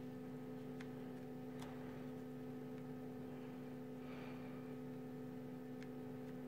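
Low steady electrical hum with a few faint ticks.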